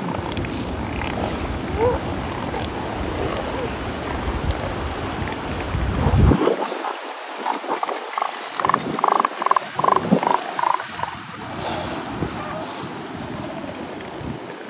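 Young male elephant seals sparring and calling with open mouths over a low rumble. About seven and a half seconds in, one gives a rhythmic pulsed threat call, about three loud pulses a second, lasting some three seconds.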